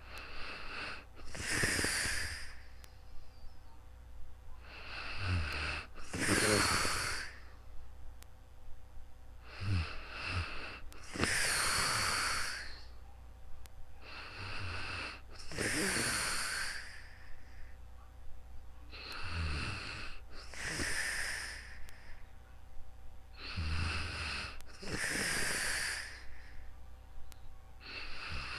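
A sleeping person snoring in slow, regular breaths, about one every four and a half seconds. Each breath is a short rattling snore followed by a longer breath out.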